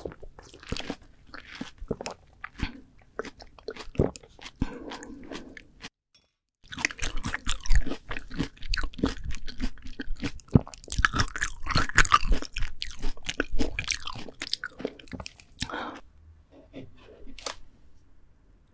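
Close-miked biting and chewing of ripe, juicy melon, a dense run of crunching, crackly mouth sounds. They stop briefly about six seconds in, come back louder, and grow quieter near the end.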